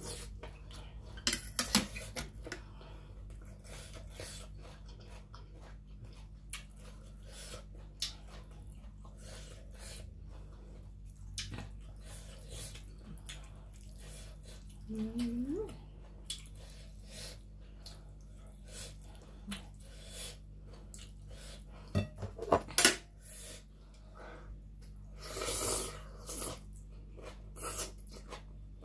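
Eating close to the microphone: chewing, with scattered small clicks and knocks of hands and a small dish against a plate, and a slurp of rice noodles near the end.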